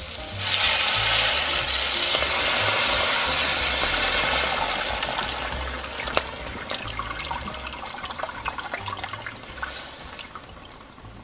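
Beef broth poured into a hot stainless steel pan around a seared beef roast, deglazing it: a loud hiss-sizzle starts about half a second in as the liquid hits the hot metal, then dies away over several seconds into scattered crackles and bubbling.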